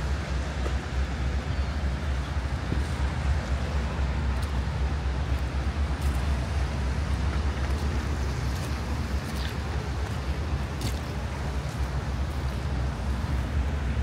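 Strong wind buffeting the microphone: a steady, fluttering low rumble under an even hiss of moving air.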